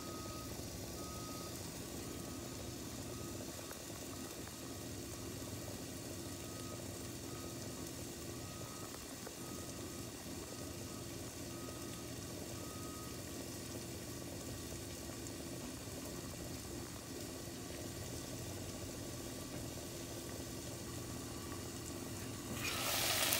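Snake gourd and potato frying quietly under a glass lid, a steady low sizzle with a faint hum beneath it. Near the end the lid comes off and the sizzling gets louder.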